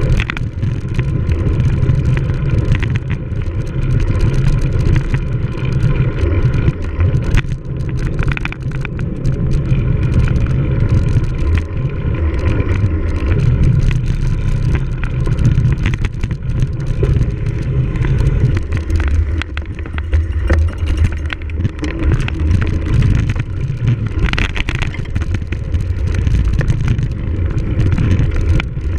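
Wind rumbling over the microphone of a camera on a cyclocross bike being raced, with the bike rattling and clattering over rough ground.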